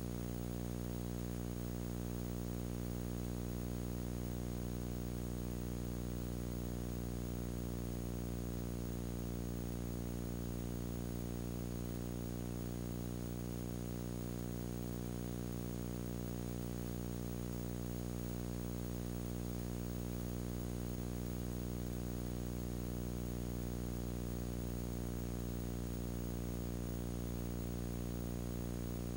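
A steady electrical hum with many overtones and a faint hiss, unchanging throughout.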